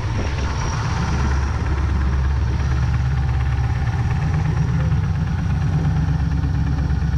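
LSA-supercharged LS V8 of a jet boat running steadily while the boat is underway, over a rush of water and wind.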